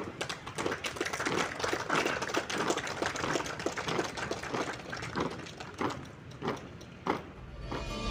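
Marching boots of a squad striking brick paving, a dense, uneven clatter of many footfalls. Music comes in near the end.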